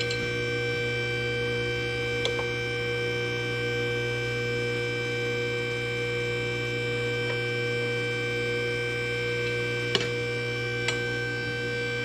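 Steady machine hum holding several fixed tones, with a few sharp light clicks of a bent steel hydraulic tube knocking against a tube bender's die, the loudest about ten seconds in.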